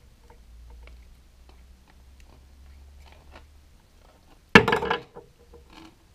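Faint plastic clicks and creaks as a lithium-ion cell is worked loose from the plastic battery holder of a Parkside cordless LED light, then a loud sharp snap about four and a half seconds in as the cell pops free, followed by a couple of small clicks.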